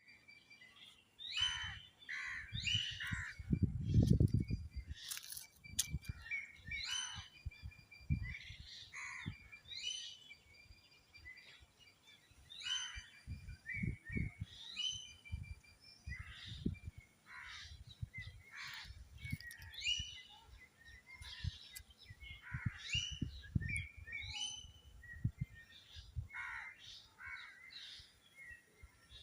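Birds calling over and over in short calls that sweep downward in pitch, with a low rumble now and then that is loudest about four seconds in.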